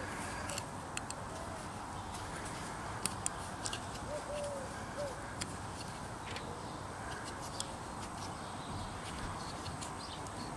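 Light plastic clicks and taps as the PIR sensor head of a security light is turned and pointed by hand. Faint outdoor background, with a couple of faint bird calls about four seconds in.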